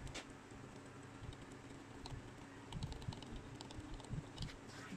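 Faint scattered small clicks and taps of hands and a soldering iron handling the COF ribbon on an LCD panel's circuit board, over a low steady hum.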